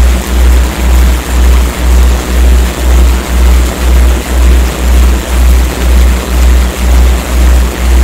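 A loud, deep synthesized hum pulsing evenly about twice a second over a steady hiss, typical of a generated meditation or 'morphic field' audio track.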